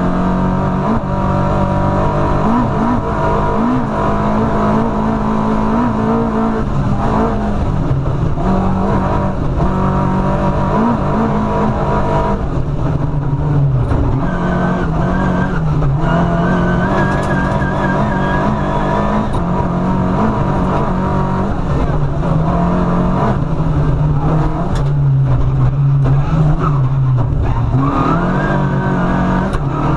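Rally car engine heard from inside the cockpit at full stage pace, its pitch climbing and dropping again and again through the gears, with scattered sharp knocks.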